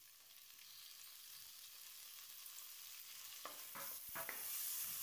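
Onions, green chillies and freshly added chopped tomatoes frying in oil in a pressure cooker: a faint sizzle that grows louder. A few scrapes of a spatula against the pan come a little after three seconds in as the mixture is stirred.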